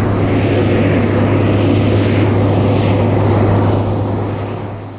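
Steady engine drone of the aircraft carrying the camera, with a constant low hum under a wide rushing noise, fading down near the end.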